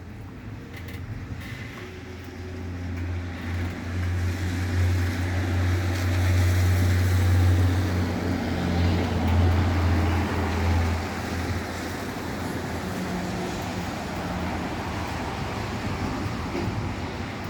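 A deep, loud rumble that swells over a few seconds, holds, then eases off after about eleven seconds to a lower steady rumble.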